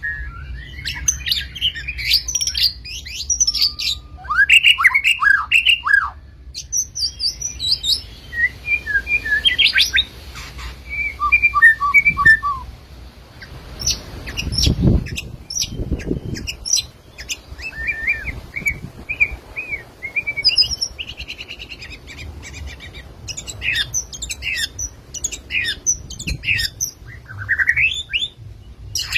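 White-rumped shama (murai batu) singing: a long, varied string of clear whistled phrases, pitch glides and quick chattering note runs, with brief pauses between phrases.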